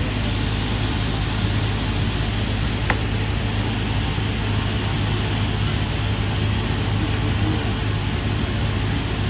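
Steady machine hum with a strong low buzz and a broad hiss from the TIG welding setup and a fan running beside the welder, while the torch welds a steel pipe joint. A single short click about three seconds in.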